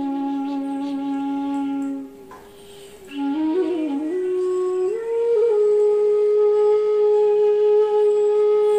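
Background music: a flute playing a slow melody of long held notes, with a short break about two seconds in and a long high note held from about five seconds on.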